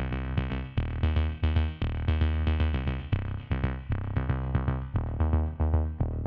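Electronic background music with a steady drum-machine beat, synthesizer notes and a heavy bass line.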